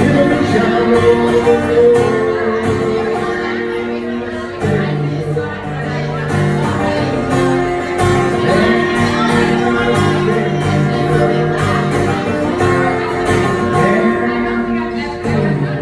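Live acoustic guitar strummed in a steady rhythm, accompanying a man singing a song.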